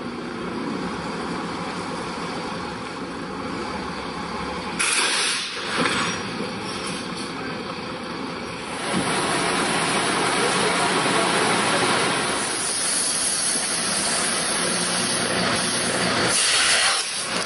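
Heavy MAN truck's diesel engine running as it manoeuvres, joined about five seconds in by a loud hiss that keeps on to the end, with a brief drop near the end.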